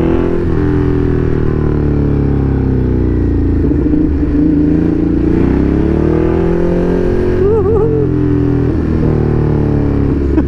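Ducati Hypermotard motorcycle engine running under way, its pitch slowly rising and falling as the throttle is opened and eased off.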